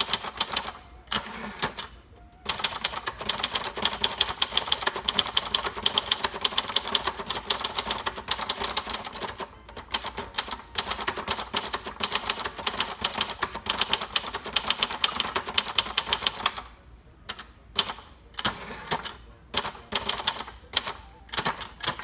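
1970 Royal Sprite portable typewriter, built by Silver-Seiko, being typed on. A few keystrokes come first, then from about two and a half seconds in a fast, steady run of type-bar strikes lasts some fourteen seconds. The strikes thin to separate clacks near the end.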